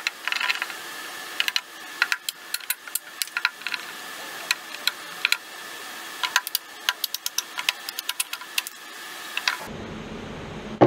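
Claw hammer tapping and knocking on an old cedar slab tabletop: a quick, irregular run of sharp clicks and taps. About a second before the end the sound changes to a low hum, and a heavy knock follows.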